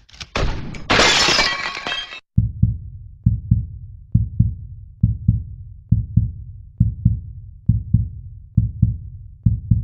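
Intro sound effects: a crash like shattering glass for about two seconds, then a deep heartbeat thumping in pairs, a little faster than once a second.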